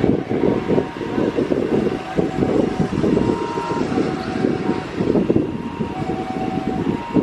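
Wind buffeting the microphone, a dense low rumble that gusts up and down, over the hum of a jet airliner's engines at idle, with faint steady whining tones above it.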